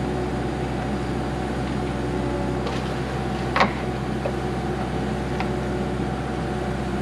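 Diesel engine of heavy construction equipment running steadily at a constant speed, with a single sharp knock about halfway through.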